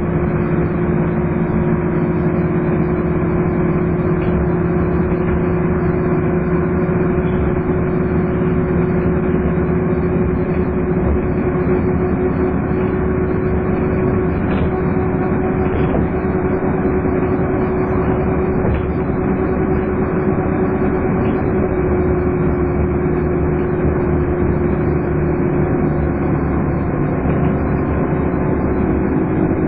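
Scania N230UD double-decker bus running steadily under way, its engine giving a continuous hoovering drone with a steady hum over road noise.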